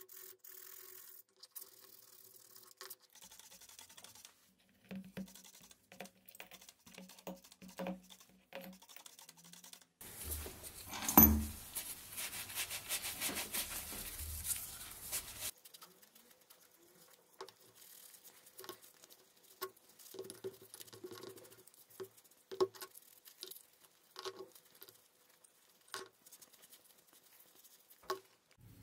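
Gloved hands rubbing and wiping bare steel vise parts with a cloth, with scattered small taps and scrapes of metal. A louder stretch of steady hissing noise runs for about five seconds in the middle, starting with a sharp click.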